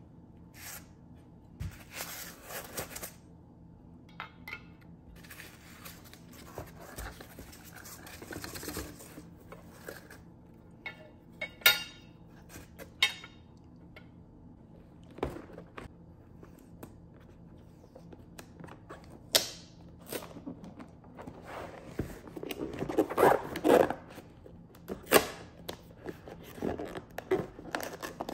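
Aluminium laptop stand parts being handled and lifted out of a cardboard box with a foam insert: scattered light taps, clinks and scrapes of the metal, with rubbing of foam and cardboard. A busier stretch of rubbing and knocks comes in the last third.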